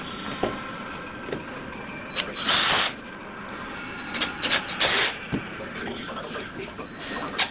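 Cordless drill driving screws into a wooden board. It runs for about half a second between two and three seconds in, then in a few quick short bursts around four to five seconds in, and briefly again near the end, with light knocks of handling in between.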